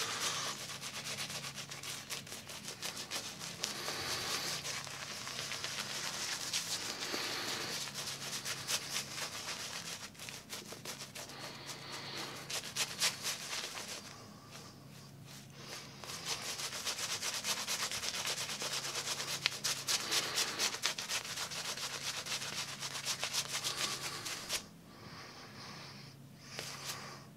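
A wet shaving brush being swirled and scrubbed against shaving soap to load and whip up the lather: a continuous, scratchy, bristly rubbing made of rapid strokes. It pauses briefly about halfway through and again near the end.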